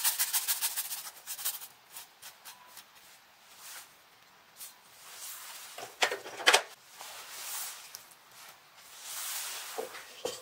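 Garlic rasped on a small flat metal hand grater over a glass bowl, about seven quick scraping strokes a second, stopping about a second in. Then scattered light clicks, with two sharp knocks about six seconds in.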